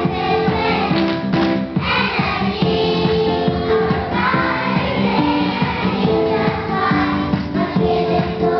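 A group of young children singing together in unison over a musical accompaniment.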